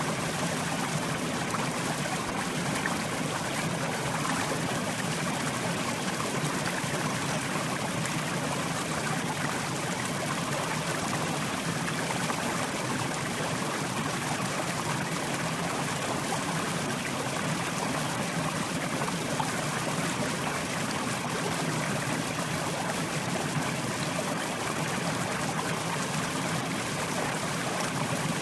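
Mountain river flowing, a steady rushing and babbling of water over rocks.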